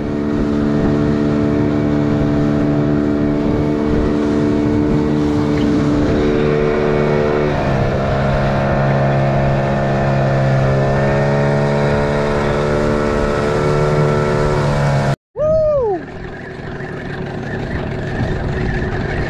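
A boat's engine running steadily, its pitch shifting a little about halfway through, then cutting off abruptly near the end, followed by a brief falling tone.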